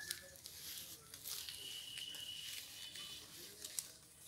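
Goats tearing and chewing jackfruit leaves: scattered light crackles and rustles of leaves, with a faint steady high tone for about a second and a half in the middle.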